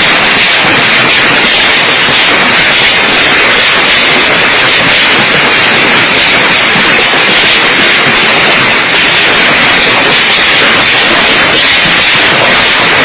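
A fierce storm's steady, loud rushing noise, with no let-up.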